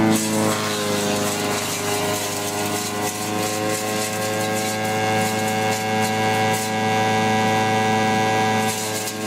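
Engine of a homemade wood-processing machine running steadily, with irregular crackling over it.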